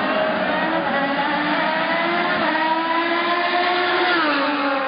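Race car engine at high revs, its pitch climbing steadily as it accelerates, then falling sharply about four seconds in.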